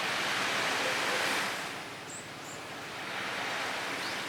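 Sea surf on a beach: the rush of a wave swells about a second in and falls away again, over a steady hiss of the sea.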